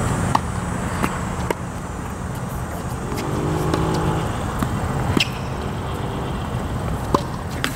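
Tennis rally: a string of sharp pops from racquet strikes and ball bounces, a second or more apart, over a steady low background rumble.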